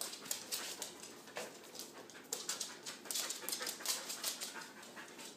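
Dogs at play, panting, with quick irregular scuffling noises.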